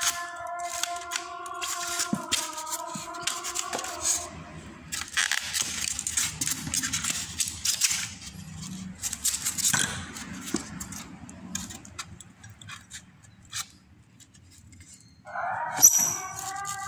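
Packaging being handled and opened: irregular rustling, scraping and scratching with small clicks. Background music with held tones plays at the start and comes back near the end.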